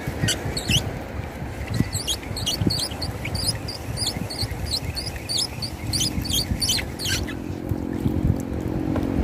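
A spinning reel being cranked to bring a fish up, its handle and gears giving short squeaky chirps several times a second over a low rumble. About six seconds in, a boat motor running steadily comes in, and the chirps stop soon after.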